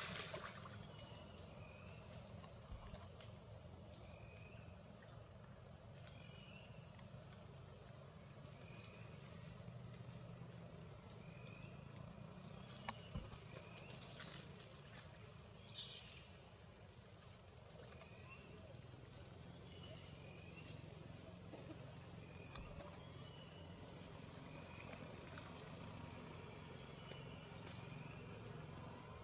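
Insects droning steadily at a high, even pitch, with faint short chirps about every two seconds and a few sharp clicks, the loudest about halfway through.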